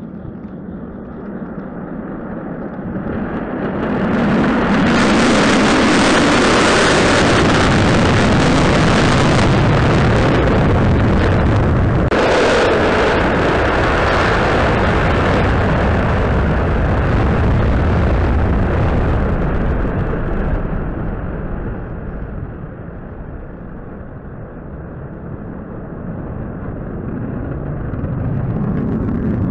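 Jet engine noise from Blue Angels Boeing F/A-18 Super Hornets at takeoff power. It builds to a loud, steady roar a few seconds in, changes abruptly about halfway through, fades over the last third, then swells again near the end.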